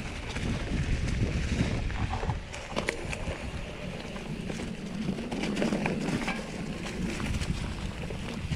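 Mountain bike rolling down a rough dirt and stone trail: tyre noise and the bike rattling with many sharp clicks and knocks, under wind noise on the microphone.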